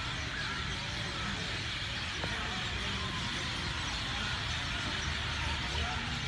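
Steady outdoor background noise: a low rumble with faint, indistinct sounds and a few light clicks over it.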